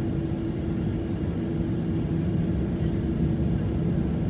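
Jet airliner cabin noise while taxiing: a Boeing 737-700's CFM56-7B engines at low taxi power give a steady low drone with a constant hum riding on it.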